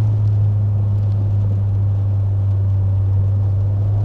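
Opel Astra OPC's two-litre turbocharged four-cylinder engine heard from inside the cabin while driving, a steady deep drone under road noise.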